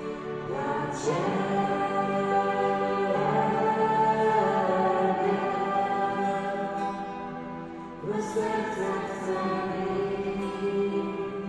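Church worship song sung by voices over instrumental accompaniment, with new sung phrases entering about a second in and again about eight seconds in.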